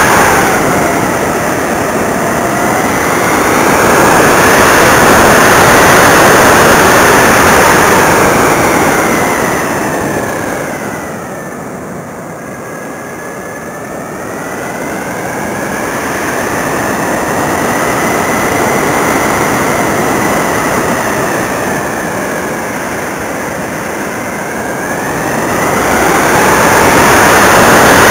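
In-flight sound of an electric RC Optima XL glider recorded on board: the whine of its TGY AerodriveXp 35-48 1100Kv brushless motor and 9×6 propeller over heavy wind rush on the microphone. The pitch and loudness rise and fall, dipping lowest about twelve seconds in.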